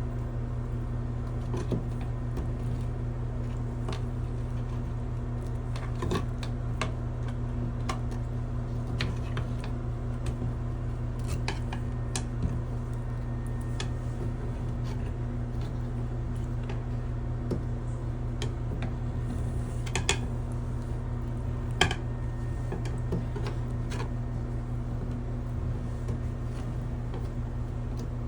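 A steady low hum runs throughout, with scattered light clinks and knocks, the sharpest about twenty and twenty-two seconds in.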